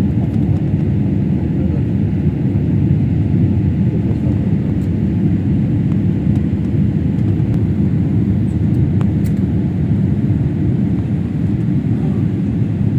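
Steady cabin noise of a jet airliner climbing after takeoff: an even, low rumble of engines and rushing air.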